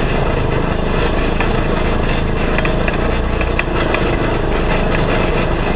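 Polaris RZR side-by-side's engine running steadily while under way, with a few short clicks and knocks from the machine over the rough ground.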